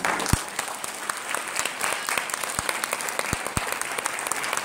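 Audience applauding steadily, a dense patter of many hands clapping, after the music stops. A few dull low thumps sound through it, the strongest near the start.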